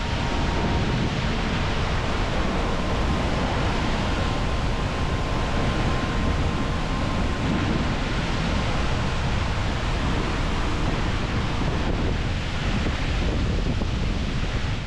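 Kvernufoss waterfall rushing steadily, a dense wash of falling water, with wind buffeting the microphone.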